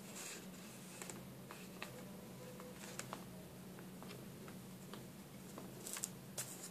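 Faint scattered clicks, creaks and rustles of a kitten scrabbling in a wicker basket and pawing at a pompom ball, with a cluster of sharper clicks near the end, over a steady low hum.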